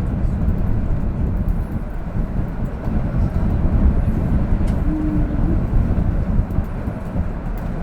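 Steady low rumble of a vehicle driving on an expressway in strong wind, road and wind noise without a break.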